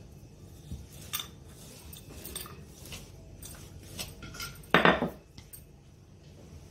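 Wooden rolling pin working naan dough on a granite counter: scattered light knocks and clinks, with one louder clatter about five seconds in.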